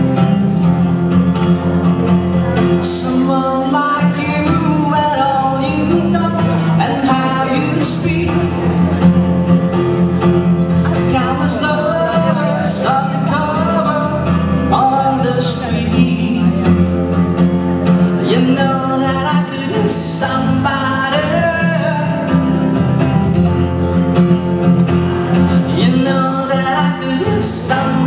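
A man singing while playing an acoustic guitar, a solo live vocal-and-guitar song.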